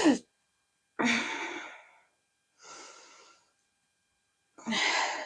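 A woman sighing heavily: a loud breathy exhale with a touch of voice about a second in, a quieter breath around the middle, then another loud breathy exhale near the end.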